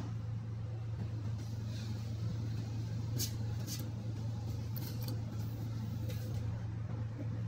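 A steady low hum, with a few brief soft rustles of hands handling wire and tape about three and five seconds in.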